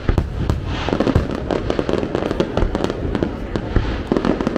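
Fireworks display going off: a dense, rapid run of bangs and crackles, several reports a second.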